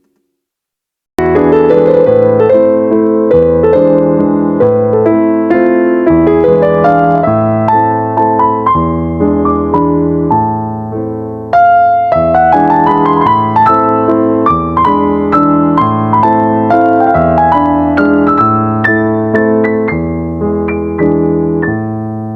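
Background music: a solo piano piece, notes struck one after another and ringing out, starting after about a second of silence.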